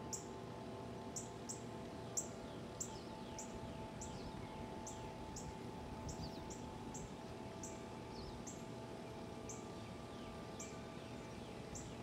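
Large tubular wind chimes ringing, several long tones overlapping and fading in and out, while a bird repeats a short high chirp about twice a second.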